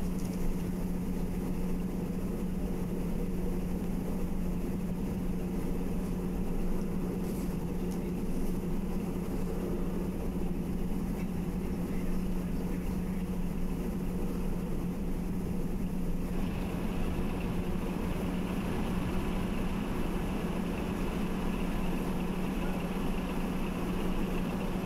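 Steady hum and rushing noise from an RS-25 rocket engine test stand before ignition, with the engine not yet firing. About sixteen seconds in, a higher hiss joins in and carries on.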